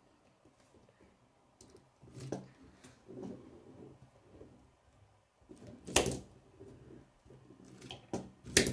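Plastic K'nex digger model knocking and clattering on a wooden table as it is picked up, turned around and set down: a few scattered knocks, the loudest about six seconds in and another sharp one near the end.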